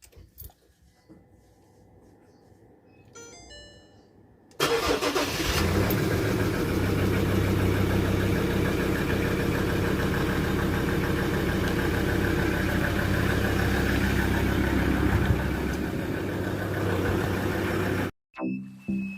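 A vehicle running loudly and steadily with a low engine hum. It starts abruptly about four and a half seconds in and cuts off suddenly near the end, where music takes over. A few faint short beeps sound shortly before it starts.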